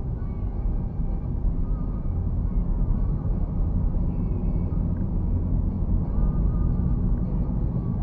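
Steady low rumble of a car's engine and tyres on the road, heard from inside the cabin while driving, with faint wavering higher sounds over it.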